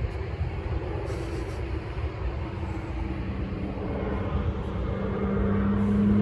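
A motor vehicle's engine hum coming in about halfway through and growing steadily louder as it approaches, over steady traffic noise.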